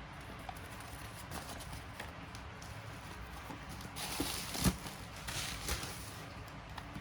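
Handling sounds while unboxing a mechanical keyboard: scattered light clicks and knocks, then two bursts of rustling packaging about four and five seconds in, with a sharp knock in the first.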